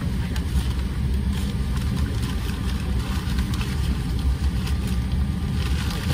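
Steady low rumble inside the cabin of an Embraer E175 regional jet as it moves back from the gate.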